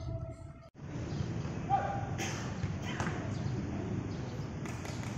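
Open-air football training-ground ambience: a few dull thuds of footballs being kicked or caught among faint distant voices. The sound drops out for a moment under a second in.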